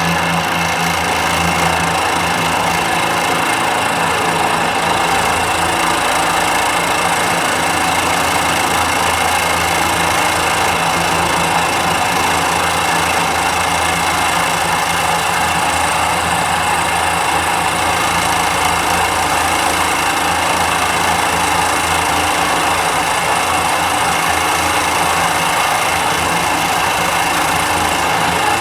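A small machine's electric motor running at a steady speed, with a constant hum and whine that does not change pitch or level.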